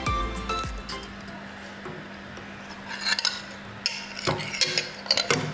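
A metal fork and spoon clinking and scraping against a ceramic plate wedged inside a stainless steel pot as it is pried loose. The sharp clinks come in the second half.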